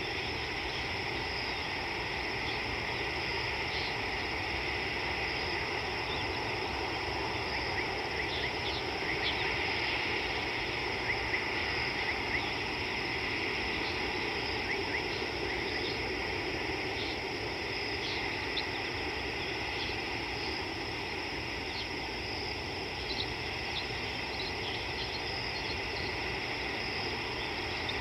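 Steady outdoor insect chorus, a constant high-pitched chirring, over a low steady background rumble, with brief faint chirps scattered through, most of them around the middle.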